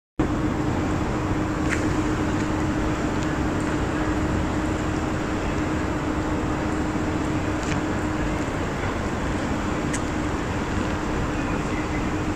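Steady outdoor background noise with a constant low hum running underneath, like distant traffic or building machinery, and a few faint clicks.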